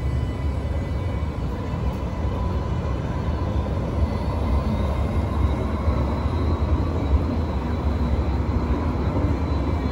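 Alstom Citadis X05 light rail trams moving along the track through the stop: a steady low rumble with a faint steady high whine.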